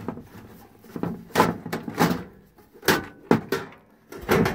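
Metal knocks and clatters from the sheet-metal box and grizzly screen of a Golden Retriever hand-held drywasher being handled, about half a dozen irregular knocks.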